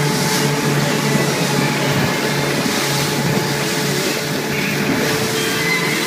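Twin Suzuki 70 hp outboard motors running steadily at cruising speed, with the rush of the boat's wake and wind.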